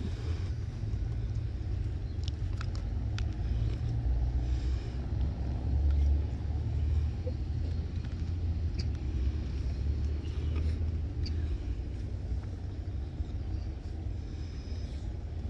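Low, steady outdoor rumble that swells and eases, with a few faint clicks.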